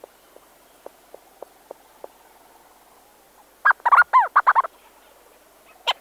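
Leach's storm-petrels calling at close range inside a burrow: faint soft ticks at first, then past halfway a loud, quick chattering run of arched rising-and-falling notes lasting about a second, with another run starting at the very end.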